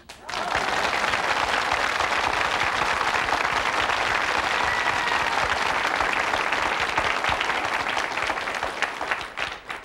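Studio audience applauding: many hands clapping in a dense, steady patter that starts just after the beginning and dies away near the end.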